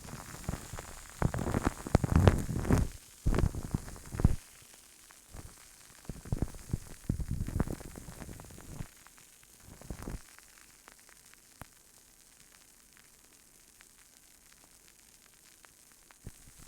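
Hands rubbing and scratching close on an ASMR microphone in several bursts of crackly friction noise with small clicks, over the first ten seconds or so, then only a few faint ticks over low hiss.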